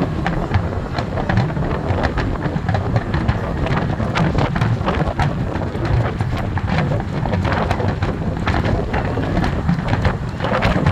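Aerial fireworks finale barrage: a continuous low rumble of bursts overlaid with dense crackling, many sharp pops a second, with wind buffeting the microphone.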